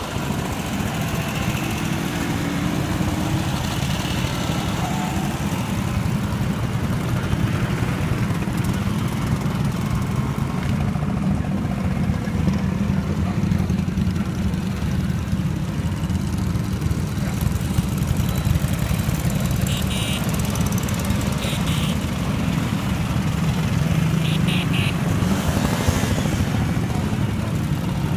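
Vintage motorcycles and Vespa scooters riding past one after another, their engines running in a continuous stream of overlapping engine noise.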